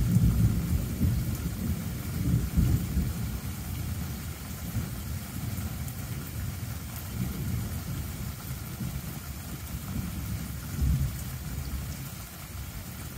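Thunderstorm: a low, uneven rumble of distant thunder, swelling at the start, again about two and a half seconds in and once more near the end, over a faint hiss of rain.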